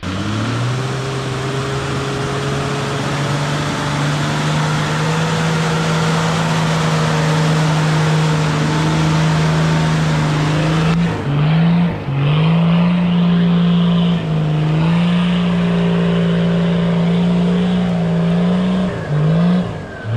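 Toyota LandCruiser 80 Series engine running hard under load through mud, its pitch climbing and then holding steady over a loud rushing noise. In the second half the revs drop and climb back several times, as the throttle is lifted and reapplied.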